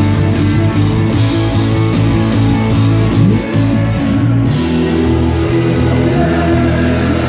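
Live country-rock band playing loudly: electric guitars over bass and drums.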